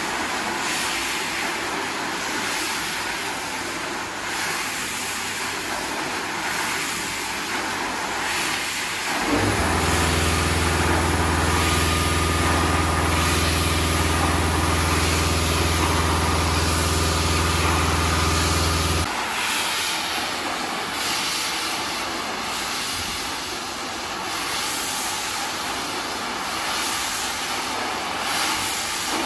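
Single-disc rotary scrubber working a soapy, foam-covered carpet: the spinning brush gives a steady wet scrubbing noise. From about nine seconds in until about nineteen, the machine's electric motor hum stands out strongly and evenly, then drops away abruptly.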